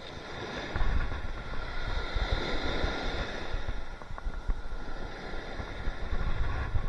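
Small waves breaking and washing up on a sandy shore, the surf swelling to a louder wash a couple of seconds in. Wind gusts rumble on the microphone.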